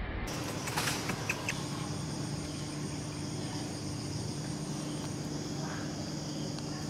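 Steady insect chorus, a continuous high-pitched buzz, with a low steady hum beneath it and a few faint ticks about a second in.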